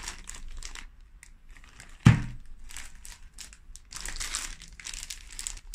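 Clear plastic packaging bags crinkling and rustling as they are handled and unwrapped, with a single sharp thump about two seconds in.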